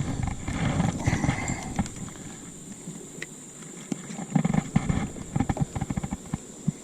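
Handling noises from weighing a bass: a low rumble at first, then a run of irregular knocks and clicks from about four seconds in as the fish and scale are handled, over a faint steady high whine.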